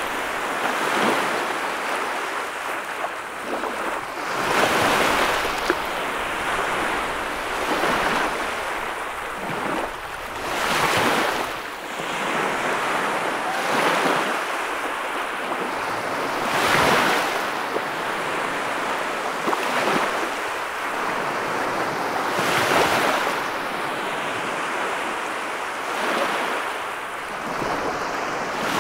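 Small waves washing onto a sandy beach, the surf swelling and easing every few seconds.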